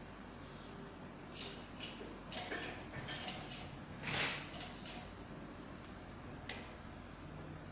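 A run of short clicks and knocks, like small objects being handled, starting about a second and a half in. A longer, louder rasping noise comes about four seconds in, and one last sharp click follows near the end.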